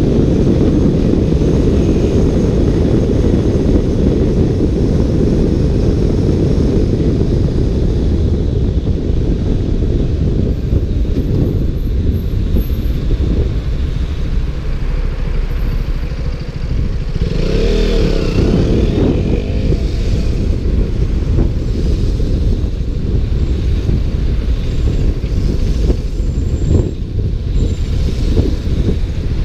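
Heavy wind buffeting on a GoPro microphone inside its waterproof case, over a riding KTM Duke motorcycle's engine running underneath. About eighteen seconds in, a pitched sound briefly rises and falls above the wind.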